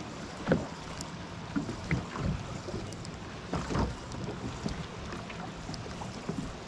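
Small waves lapping and slapping irregularly against the hull of a small fishing boat, with a few low knocks and light wind on the microphone.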